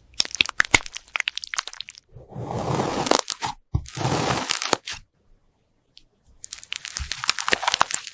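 Crisp crunching and crackling in rapid runs of sharp snaps, with two longer stretches of steady, smeary noise in the middle, as in an ASMR crushing sound effect.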